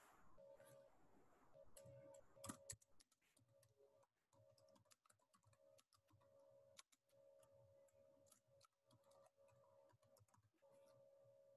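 Faint typing on a computer keyboard: irregular key clicks over a faint steady hum.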